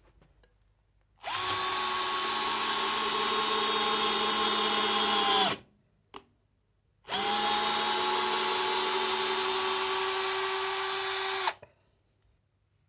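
Parkside PBSA 12 D4 12 V cordless drill driving a screw into a wooden beam: two steady motor runs of about four seconds each, the whine dropping in pitch as each run stops.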